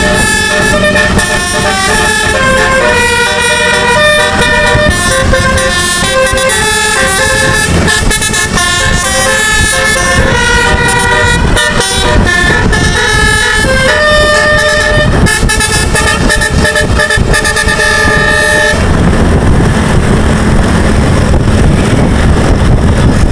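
Bus 'telolet' musical air horn playing a tune of stepped, held notes. The tune cuts off a few seconds before the end, leaving a steady low rumble and noise.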